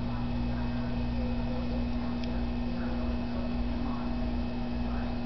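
Steady electrical hum over a low rumble, with one small tick about two seconds in.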